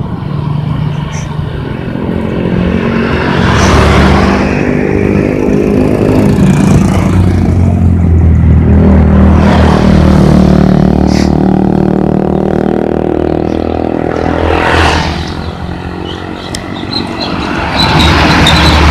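Road traffic passing close by: motor scooters go by one after another over the low, steady running of a diesel truck engine. Near the end a Hino truck drives past loudly.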